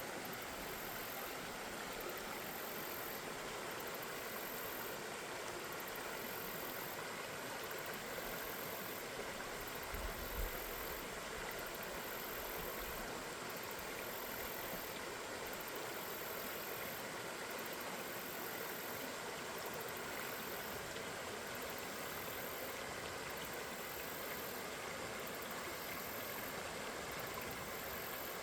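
River water flowing in a steady, even rush, with a brief low thump about ten seconds in.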